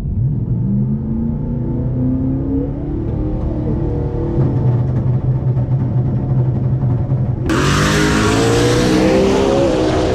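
Fox-body Mustang drag car's engine idling and blipping at the start line, heard muffled through the cabin of the silent electric Tesla Model S Plaid. About seven and a half seconds in, a loud rush of wind and road noise cuts in and the engine climbs in pitch as the cars launch.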